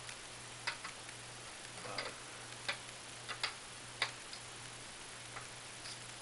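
Light, irregular clicks and taps of a small tool and fingers on the plastic parts of a Visible V8 model engine as its cylinder-head nuts are tightened down, about ten in all, over a low steady hum.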